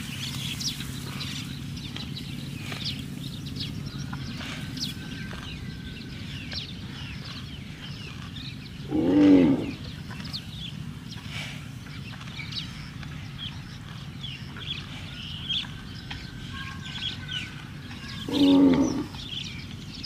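A cow mooing twice, two short calls about nine seconds apart, over small birds chirping throughout.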